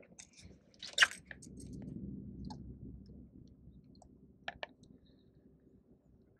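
Spinning rod and reel being handled while fishing. A loud sharp click comes about a second in, then a low rumbling whir for a couple of seconds, then two quick clicks about four and a half seconds in.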